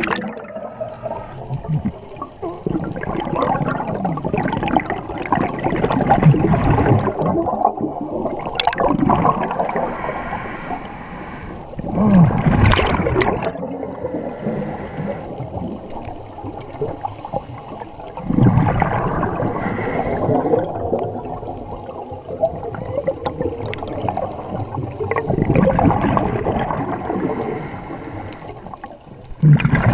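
Scuba regulator exhaust bubbles gurgling and rushing past the camera underwater, in surges several seconds apart as the diver breathes out.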